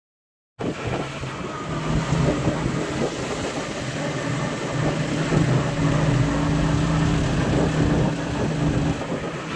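Motorcycle engine running steadily while riding, with wind rushing over the microphone; it starts suddenly about half a second in.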